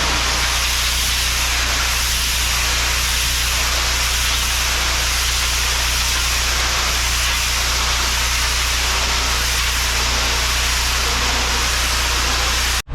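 Pressure washer spraying: a loud, steady hiss of the water jet over the constant low hum of its engine and pump, cutting off abruptly near the end.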